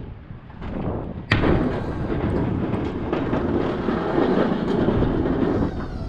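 Boss DXT V-plow blade coming down with a sudden loud bang a little over a second in, then scraping across the driveway pavement as it pushes snow for about four seconds before stopping.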